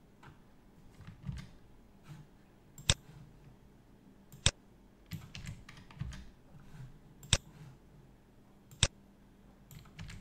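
Computer keyboard typing: scattered soft keystrokes, with four sharp, louder clicks spread through.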